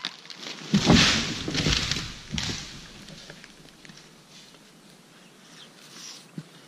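A felled conifer crashing to the ground: a heavy thud about a second in, with branches crashing and rustling for a second or two, then dying away.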